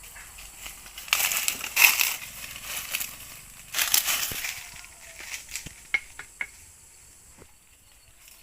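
Crunching and rustling in two loud bursts, each about a second long, followed by a few sharp little snaps.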